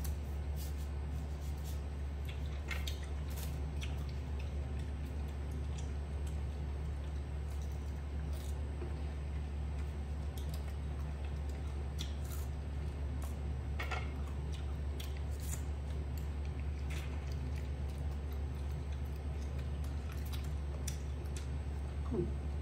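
A young macaque chewing and biting fruit slices: scattered small wet clicks and smacks, over a steady low hum.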